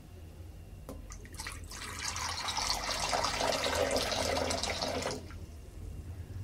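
Water poured into a glass bowl: a few drips and splashes about a second in, then a steady pour for about three seconds that stops fairly sharply a little after five seconds in.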